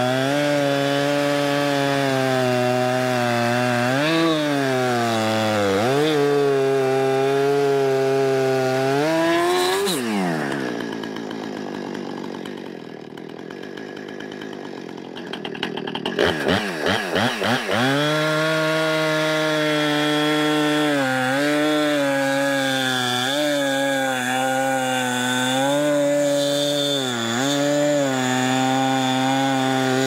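Husqvarna 455 Rancher two-stroke chainsaw with a 20-inch bar cutting through a log at full throttle, its pitch dipping briefly several times as the chain bogs under load. About ten seconds in the throttle is let off and the engine winds down to idle. Near sixteen seconds it is blipped and revved back up to cut again.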